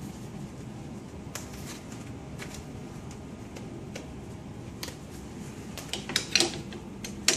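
Plastic handling clicks as a fluid-bag hanger is fitted onto a CRRT machine's weighing scale. The sharpest clicks come about six seconds in and again just before the end, the click that shows the scale hook has locked in place. A steady background hum runs underneath.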